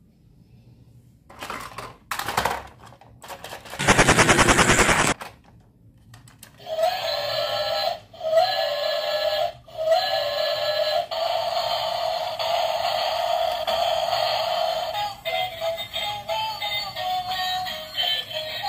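Battery-operated toy trains: a short, loud rattling buzz about four seconds in, then from about seven seconds a tinny electronic tune from a toy train's built-in sound chip, in short phrases that turn choppier near the end.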